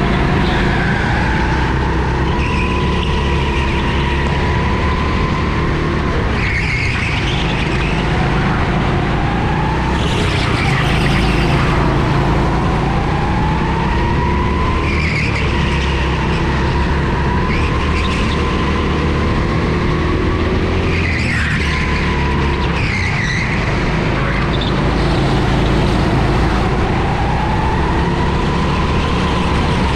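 Go-kart engine heard on board, its pitch climbing steadily along each straight and dropping away into the corners, again and again. Several short noisy bursts break in along the way.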